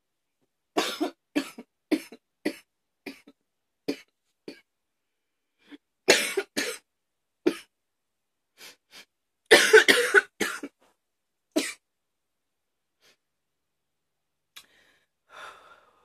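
A woman coughing hard in repeated fits: a run of short coughs that grow weaker, then two more bouts, the loudest about ten seconds in, with a few faint breaths near the end.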